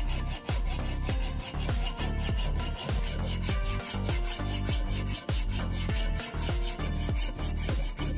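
Hacksaw sawing back and forth through the steel shell of a spark plug held in a vise: a rhythmic, rasping metal-on-metal stroke.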